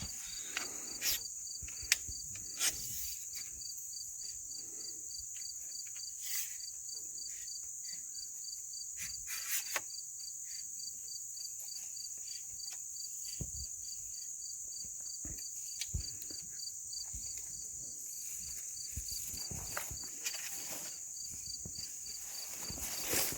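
Insects, crickets or katydids, calling steadily: a continuous high shrill drone with an even, rapid pulsed chirp just under it. Scattered faint rustles and clicks sound here and there.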